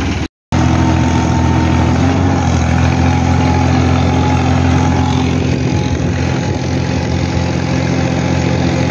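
Farm tractor's diesel engine running steadily under load while pulling a seed planter. The sound cuts out completely for a moment just after the start.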